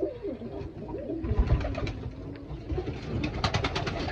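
Domestic pigeons cooing in a loft, a low wavering coo that rises and falls. Near the end comes a quick run of sharp taps.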